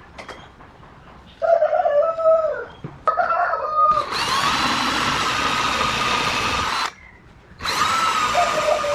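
A rooster crows about a second and a half in, with a shorter call just after. Then an electric power tool motor runs at a steady speed for about three seconds, stops, and starts again near the end.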